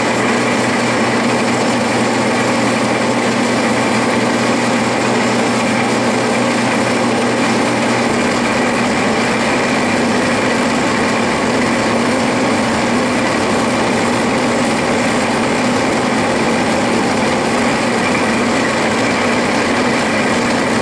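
A Clausing metal lathe running steadily with its spindle in reverse and the gear train engaged for thread cutting, as a single-point tool takes passes on aluminum stock. The low hum shifts about eight seconds in.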